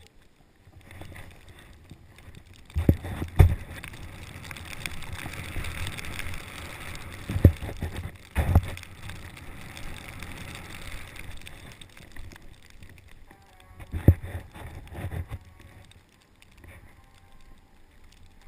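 Snowboard sliding and carving through snow: a hissing scrape that swells in the middle and fades toward the end, broken by three pairs of sharp low thumps.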